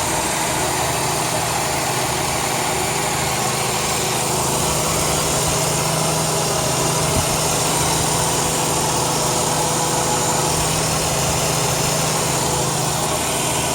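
2002 Chrysler 300M's 3.5-litre V6 idling steadily, with a constant hiss from a vacuum leak that the owner puts down to a failed intake manifold gasket.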